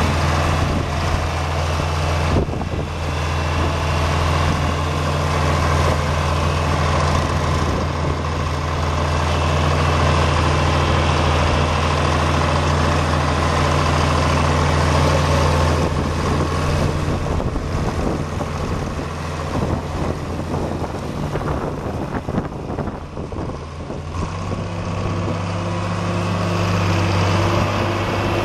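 John Deere 4020's six-cylinder diesel engine idling steadily. About three-quarters of the way through, the engine speed rises a little and holds at the slightly higher idle.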